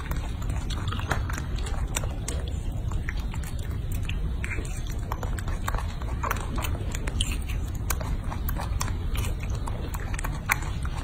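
A baby macaque biting and chewing a red fruit held in its hands: many small, irregular mouth clicks and smacks over a steady low hum.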